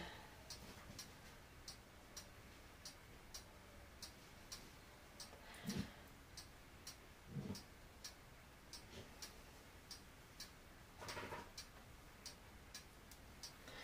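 Near silence with faint, even ticking, a little under two ticks a second, and a couple of soft low knocks about halfway through.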